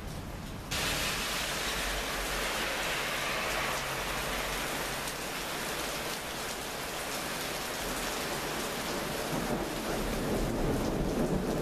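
Heavy rain pouring during a powerful thunderstorm, a dense steady hiss that starts abruptly about a second in. Near the end a low rumble of thunder builds under the rain.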